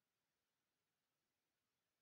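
Near silence: faint steady hiss, no other sound.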